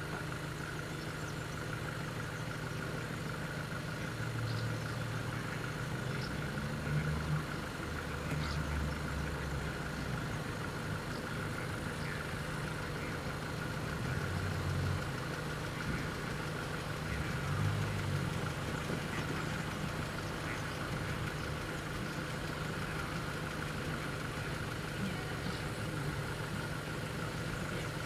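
Engine idling steadily, its low rumble swelling a few times, over a steady high tone.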